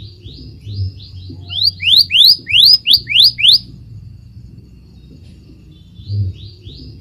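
Scarlet minivet song: a run of about a dozen quick, rising whistles that grow louder over about three and a half seconds, then a pause. A new run starts near the end.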